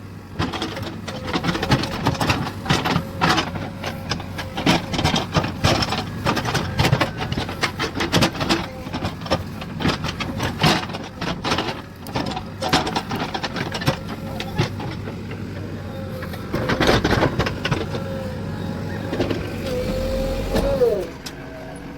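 Backhoe loader working: the diesel engine and hydraulics run with a steady whine, over repeated knocks and clatter. Near the end the engine note drops.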